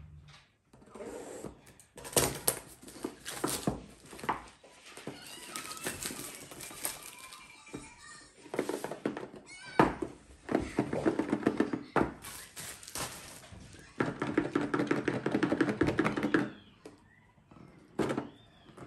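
Thin clear plastic packaging crinkling and rustling as it is pulled from a cardboard box and crumpled in the hands, in several stretches, with a sharp knock about ten seconds in as the cardboard box meets the wooden table.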